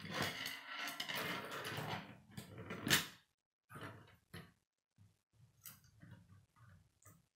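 Plastic K'nex rods and connectors clattering and scraping on a wooden tabletop as the assembled frame is shifted around, with a sharp snap about three seconds in, then scattered small clicks of pieces being handled.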